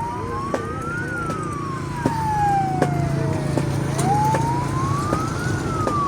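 A wailing siren, its pitch climbing quickly and then falling slowly, twice. Under it runs a steady low hum, with scattered sharp clicks.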